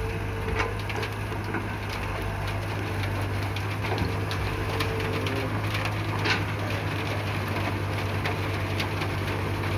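Caterpillar E120B excavator's diesel engine running steadily, with scattered crackles and ticks of sand and grit as a load goes into the truck.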